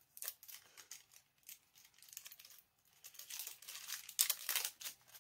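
Crinkly packaging around a lipstick being crinkled and torn open by hand: a quick run of crackles, loudest about four seconds in.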